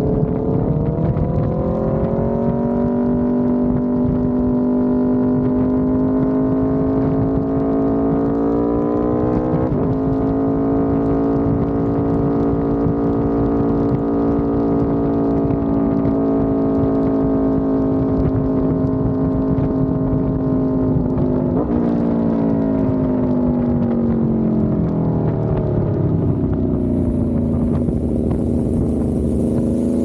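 Aprilia RSV4 1100 Factory's V4 engine through a Racefit exhaust, running under steady throttle on the road with a steady pitched note and wind rush. The pitch climbs at the start, holds with brief breaks near ten and twenty-one seconds in, falls away for a few seconds as the bike slows, and rises again near the end.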